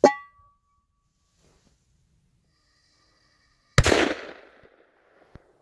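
An enamel metal pot clanks down onto a wooden stump with a brief ring. About four seconds in, a Dum Bum firecracker goes off under the upturned pot with a single loud bang that blasts the pot into the air; the bang trails off over about a second.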